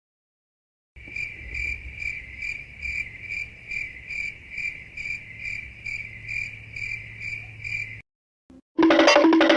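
Crickets chirping sound effect: a steady high chirp pulsing about two and a half times a second for about seven seconds, then cutting off. Near the end, music with plucked guitar notes begins.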